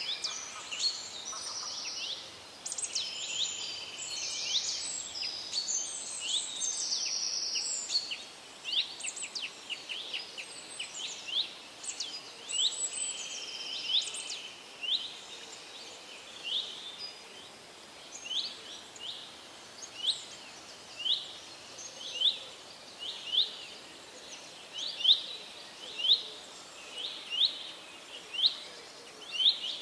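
Small birds chirping: a busy mix of high chirps and trills at first, then, from about halfway, one bird repeating a short rising call about once a second, getting louder near the end.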